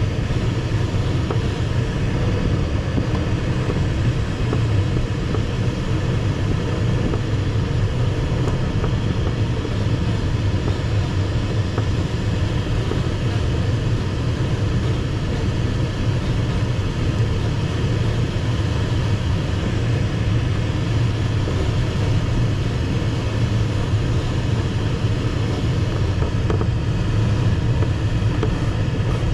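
Steady airflow rushing past the canopy inside the cockpit of an ASW 15 sailplane in gliding flight, a constant low rumble with hiss above it.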